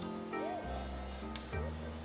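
Background music: sustained chords over a steady bass line.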